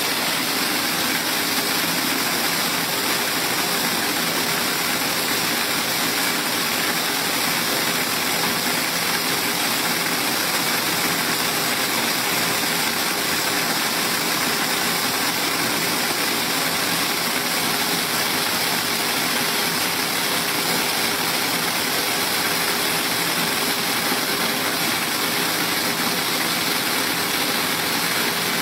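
Mung bean optical color sorter running: a steady machine noise with the hiss of beans streaming from its outlets into plastic bins, holding at an even level throughout.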